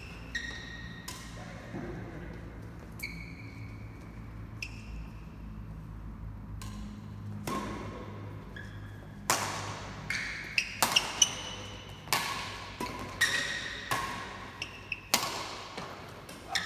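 Badminton rally: sharp racket strikes on the shuttlecock echoing in a large hall, mixed with short squeaks of shoes on the court. The squeaks and strikes are sparse at first, then come quickly from about nine seconds in.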